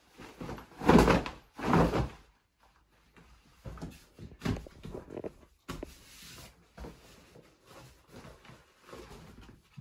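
Canvas plash-palatka rain cape being folded by hand: two loud thumps of the heavy cloth about one and two seconds in, then softer irregular rustling and handling of the fabric.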